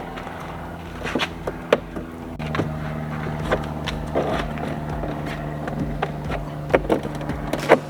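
Hand tools at work on a Jeep Wrangler door, with light clicks and knocks scattered through as the door-handle screws are backed out with a Phillips and a T25 Torx driver. Under them is a steady low hum that changes about two and a half seconds in.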